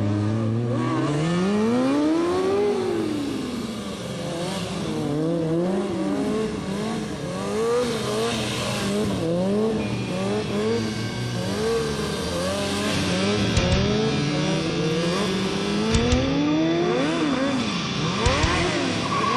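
Sportbike engine revving up and down over and over, its pitch swinging in quick rises and falls as the bike is ridden through stunt tricks, with a hiss swelling briefly about halfway through.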